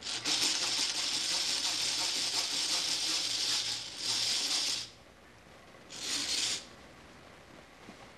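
Hand-cranked geared drill boring a hole through a thin wooden stick, its gears rasping as it turns. A long run of cranking of about four seconds, a short second run right after, then a brief third run following a pause.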